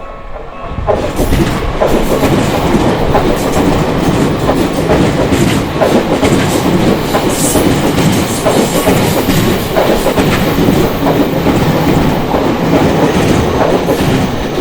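Tokyu Toyoko Line electric train passing over the level crossing. A loud, steady rumble of wheels on rails builds about a second in, with clicks as the wheels cross rail joints.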